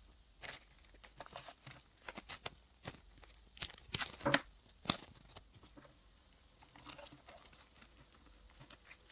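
Masking tape being torn and pressed onto a scrunched tin-foil model, with the foil crinkling under the fingers: a run of short, irregular rips and crackles, loudest about four seconds in, then quieter handling.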